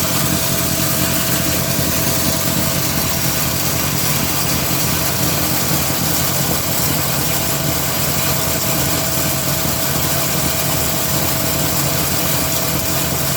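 Electric feed-mill grinder driven by a 3 HP single-phase motor running steadily, a dense mechanical noise with a faint steady whine over it.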